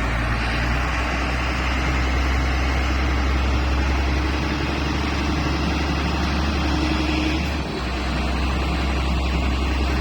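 Motor grader's diesel engine running steadily with a deep, continuous hum, dipping briefly about three-quarters of the way through.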